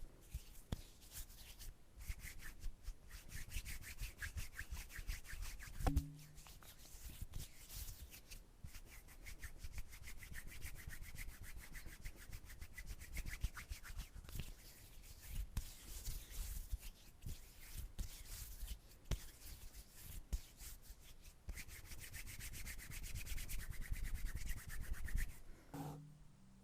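Hands rubbing together close to the microphone in quick, continuous scratchy strokes, with a single louder knock about six seconds in.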